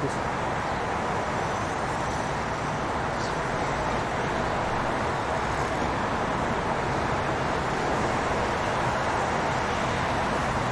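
Steady city street traffic noise, an even wash of passing cars.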